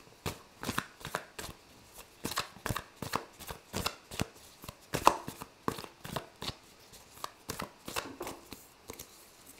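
A tarot deck being shuffled and handled, with irregular card slaps and snaps a few times a second.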